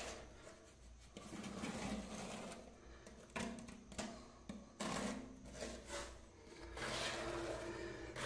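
Plastic notched spatula scraping and dragging freshly poured epoxy resin across a tiled shower floor, in short, uneven strokes.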